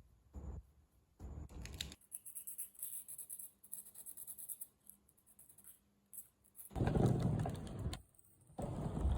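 Hand-work noises on a suitcase wheel: scattered small clicks and knocks, then a stretch of faint, scratchy rubbing. A louder rustle comes about seven seconds in and again near the end.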